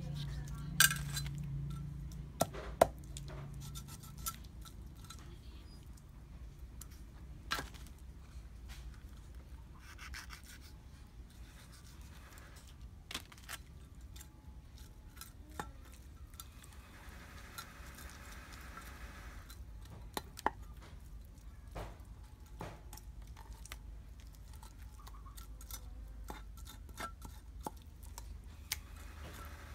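Knife cutting fish on a board: irregular sharp knocks and clinks, the loudest in the first three seconds and one about twenty seconds in, over a low steady rumble.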